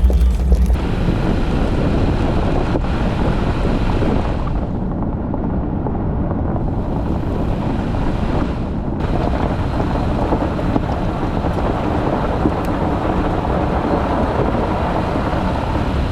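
Jeep TJ driving along a gravel road: a steady rush of tyre noise on gravel and wind. The high hiss drops away for a few seconds in the middle.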